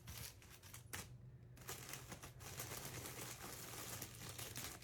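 Candy packaging crinkling and rustling in the hands as sweets are placed in an Easter basket, with a short break about a second in.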